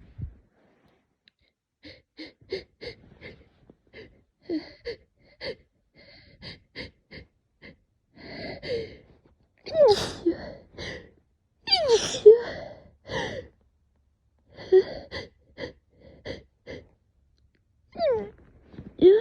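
A person in an allergy attack from cat dander, with a rapid series of short hitching catches of breath, then several loud sneezes with a falling pitch from about halfway through.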